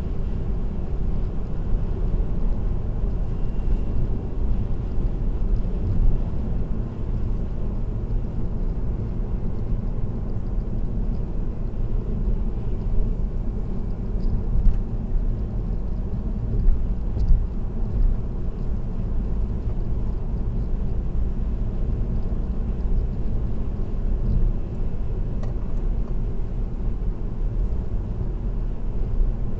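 Car cruising on an expressway, heard from inside the cabin: a steady low rumble of tyres and engine, with a few brief small knocks along the way.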